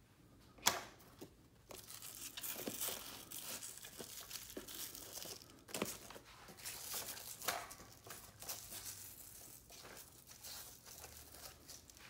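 Velcro One Wrap hook-and-loop straps ripping open and being pressed shut in repeated rasping stretches as a rifle is strapped to a rigid MOLLE panel. A sharp knock about a second in, the loudest sound, as the gun is set down on the panel.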